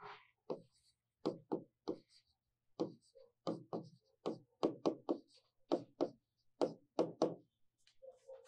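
Chalk knocking and tapping against a blackboard during handwriting: a quick, irregular run of sharp taps, about two a second, as each letter and symbol is struck on.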